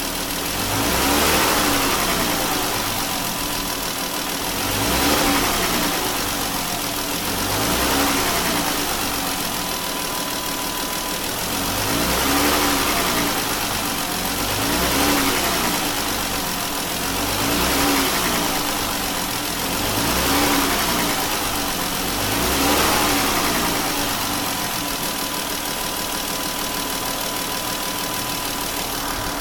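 Car engine revved about eight times, each rev falling back to idle, then idling steadily near the end. The owner hears it knocking as the revs come down.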